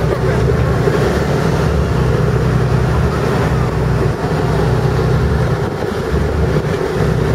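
Boat's engine running steadily under way, a low drone with a steady hum above it, mixed with a rush of wind and water.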